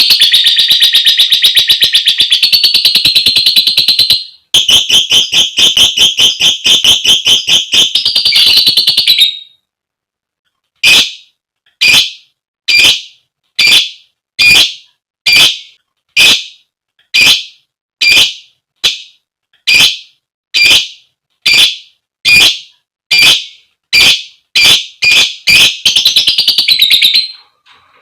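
Female lovebird calling to a male: a long, rapid, shrill chattering trill (ngekek) that breaks briefly about four seconds in and stops after about nine. After a short pause come sharp single calls about one a second, quickening near the end and running into another short trill.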